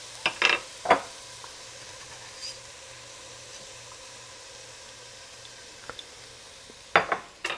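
Sliced onions sizzling steadily as they sauté in oil in a pot on a gas burner. A few sharp knocks of a spatula against the pot near the start, and again near the end.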